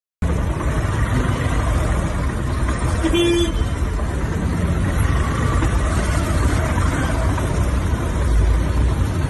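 Traffic noise heard from a motorcycle moving through congested traffic, with a heavy low rumble of wind and engine on the microphone. A brief horn toot sounds about three seconds in.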